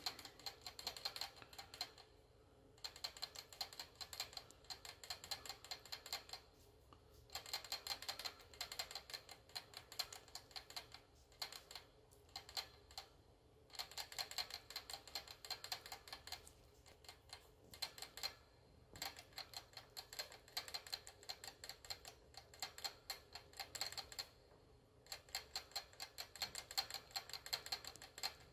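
Pet rat licking at the metal sipper tube of a cage water bottle, each lick working the ball valve in the spout. The result is rapid clicking in runs of a few seconds, broken by short pauses.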